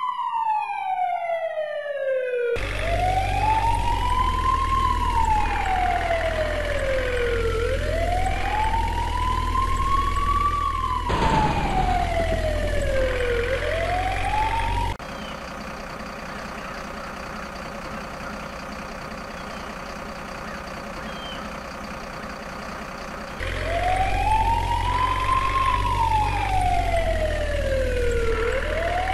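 Fire engine siren wailing, each slow rise and fall taking about five to six seconds, over a low engine rumble. In the middle it breaks off for about eight seconds, leaving a quieter steady hiss, then starts again near the end.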